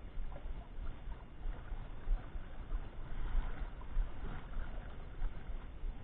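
Uneven low rumble, like wind on the microphone, over a steady wash of water noise around a small fishing boat.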